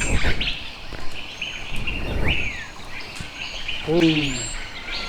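Wild birds chirping and calling, with many short high chirps and a clear whistle that falls in pitch about two seconds in. A short low call, also falling in pitch, comes about four seconds in, over a low outdoor rumble.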